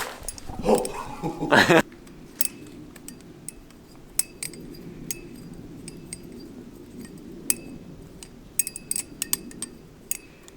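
Balisong (butterfly knife) being flipped: irregular sharp metallic clicks and clinks as the handles swing and knock together, a few close together near the end. A brief voice-like call sounds in the first two seconds.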